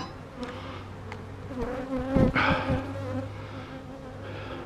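Honeybees buzzing steadily around an opened hive, a low droning hum of many bees, with a brief rustle about two seconds in.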